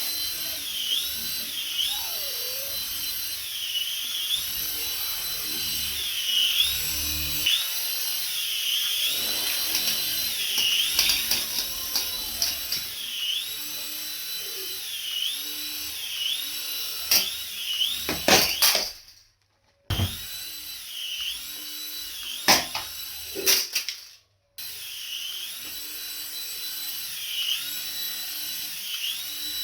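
A battery toy's electronic sound effect: a looping high whine that dips in pitch and comes back about every two seconds, with occasional handling knocks and clicks. The sound cuts out briefly twice near the end.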